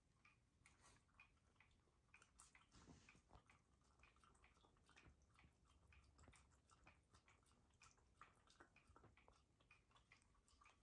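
Shiba Inu lapping water from a bowl: a faint, even run of wet laps, about three or four a second.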